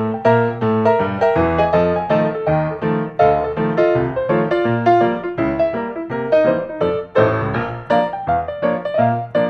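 Background music: a keyboard tune of short, evenly paced piano-like notes.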